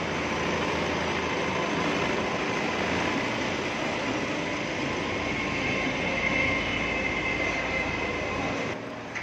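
Tata Safari Dicor's 2.2-litre VTT DICOR diesel engine running as the SUV is driven slowly onto a service-bay lift, a steady rumble echoing in the workshop with a faint whine over it in the second half; it stops shortly before the end.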